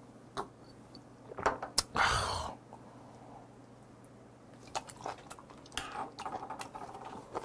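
Close-up eating and drinking mouth sounds: a few small clicks, a loud short breathy burst about two seconds in, then soft wet clicks of chewing and slurping raw shellfish from its shell.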